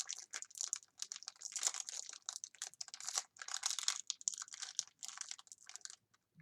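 Pokémon booster pack and cards being handled: a dense run of crinkly rustling and rapid small clicks from the foil wrapper and the card edges, stopping about six seconds in.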